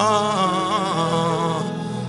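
Slow gospel-style music: a wavering sung line over held chords, the phrase breaking off near the end.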